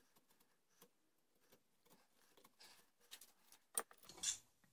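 Carving tool paring thin shavings from a wooden gunstock by hand: faint scattered scrapes and clicks, then a sharp click and a louder scrape near the end.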